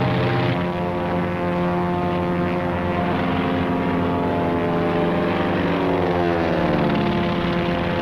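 Propeller aircraft engine running steadily, its pitch falling about six seconds in as the plane passes by.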